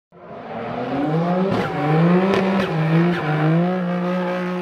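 Car engine revving sound effect under a logo intro. It fades in, and its pitch steps up and bends a few times as it revs.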